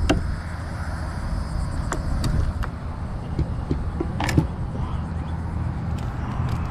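Steady low rumble of wind on the microphone, with scattered sharp clicks and knocks of a fishing rod and landing net being handled on a kayak as a redfish is netted. The loudest knock comes about four seconds in.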